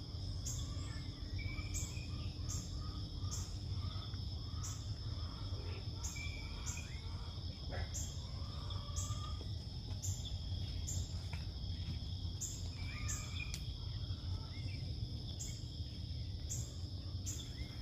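Outdoor insect chorus: a steady high trilling of crickets with a regular high pulsing chirp repeating a little faster than once a second, over a low background rumble. Scattered small bird chirps come through.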